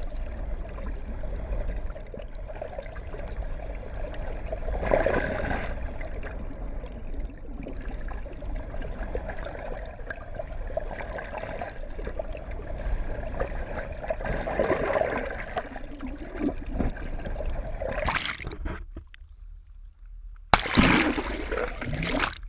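Muffled rushing and sloshing of water heard through an action camera's waterproof housing held just under the sea surface, with a steady low rumble and swells every few seconds. It dips briefly near the end, then comes back louder.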